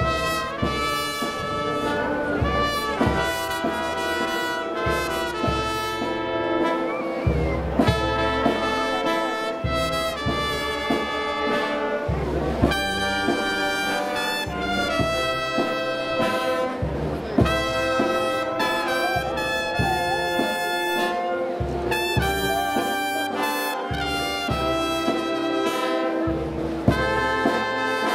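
Brass band playing a tune, with trumpets and trombones carrying the melody in sustained notes.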